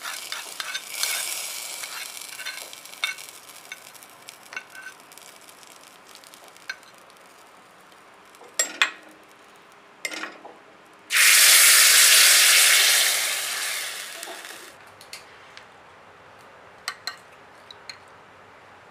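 Sizzling of a hot-oil tempering of mustard seeds, dried red chillies and curry leaves going into sambar, fading over the first few seconds, with a few clinks of a ladle against a steel pot. About eleven seconds in a much louder sizzle starts suddenly and lasts about three seconds before dying away.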